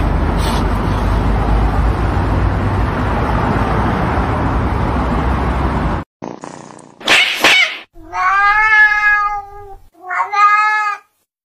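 A steady, loud noisy rumble that stops abruptly at a cut, then a short hiss followed by a cat's long drawn-out meow and a shorter second meow.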